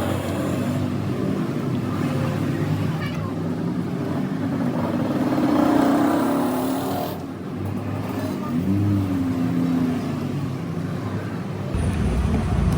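Road traffic: motor vehicles, likely motorcycles and cars, passing by with engine pitch rising and falling, and a heavier low rumble coming in near the end.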